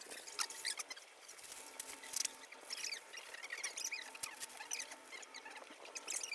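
Baking paper crinkling and rustling in irregular crackles as it is pulled off its roll and spread out flat by hand.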